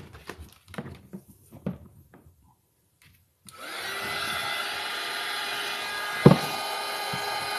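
A few light clicks of small parts being handled, then about three and a half seconds in a small electric tool motor spins up and runs steadily with a whining hum. One sharp knock comes near the end.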